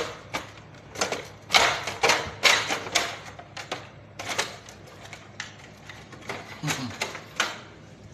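Hard plastic clicks, knocks and rattles of a wall-mounted split air conditioner's casing and louvers being handled as a hidden camera is dragged out of it. The clicks come irregularly, some in quick clusters.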